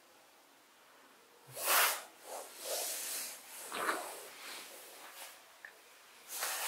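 Breathy hissing exhales close to the microphone, several in a row, the loudest about a second and a half in and again near the end, over faint room tone.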